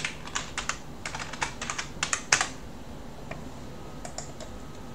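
Typing on a computer keyboard: a quick run of key clicks, ending in a louder keystroke about two and a half seconds in, then a few faint clicks.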